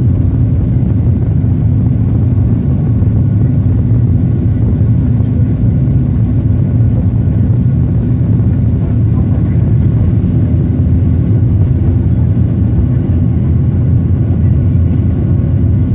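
Boeing 737 jet engines heard from inside the cabin over the wing, running at takeoff power as the airliner rolls down the runway: a loud, even low roar with a faint steady whine above it.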